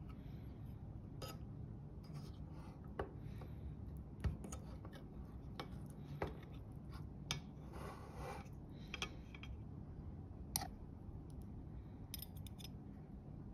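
Metal spoon and fork clinking and scraping against the inside of an open tin can while flaking oily tuna chunks: scattered light clicks with a brief scrape, over a low steady hum.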